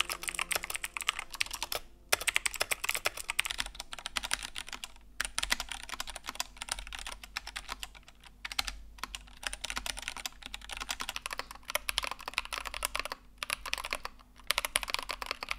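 Typing on a Keychron K2 Pro mechanical keyboard: a fast, continuous clickety clack of keystrokes, with brief pauses about 2, 5, 8 and 13 seconds in.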